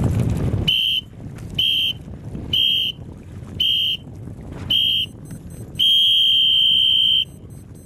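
Race committee's electronic start signal: five short high beeps about a second apart counting down, then one long beep that marks the start. Wind on the microphone is heard before the first beep.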